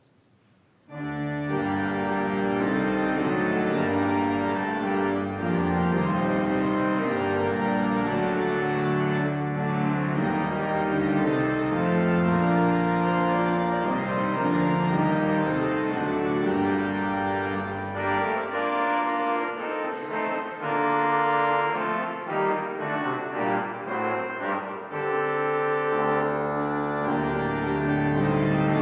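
Church pipe organ playing sustained chords with a deep pedal bass, starting about a second in. The bass drops out for several seconds in the second half and comes back near the end.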